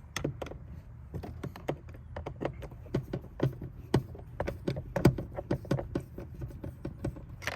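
Phillips screwdriver backing a screw out of a car door trim panel: a run of small irregular clicks and taps, several a second.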